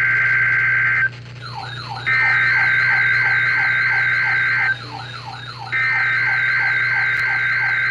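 Emergency Alert System SAME header on NOAA Weather Radio: bursts of shrill two-tone digital data, each about two and a half seconds long with roughly a second between them. The last burst is still sounding at the end. Under the bursts run a warbling high tone and a quick series of falling chirps, about three a second, which are plain in the gaps.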